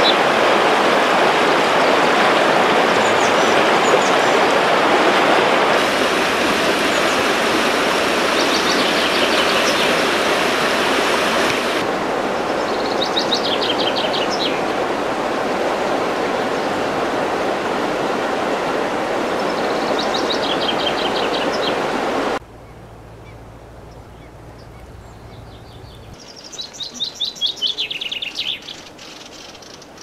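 Rapids rushing steadily over rocks, with short songbird trills heard through the water noise several times. About two-thirds of the way in, the water noise cuts off, and a songbird sings one loud, falling trill near the end.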